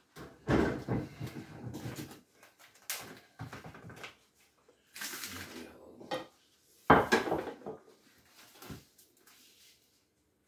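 Kitchen handling sounds: irregular knocks and clatters of dishes and containers on a counter. There is a short rustle about halfway through and a sharp knock about two-thirds of the way in.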